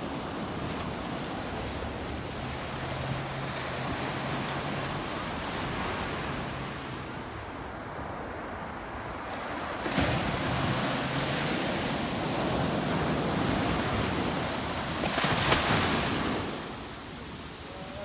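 Small surf breaking and washing up the sand at the water's edge. A steady wash runs throughout, a wave breaks suddenly about ten seconds in, and a louder rush of foam runs up the beach a few seconds later.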